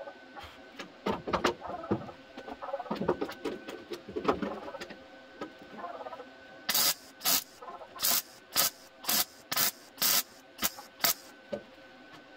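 Handling clatter, then a MIG welder firing short tack welds on the sheet steel of a car's rear inner wheel arch. About halfway in come nine or ten brief crackling bursts, roughly two a second.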